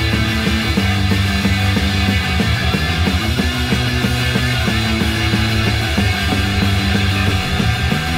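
1977 punk rock recording: a band with electric guitar, bass guitar and drums playing at a fast, steady beat.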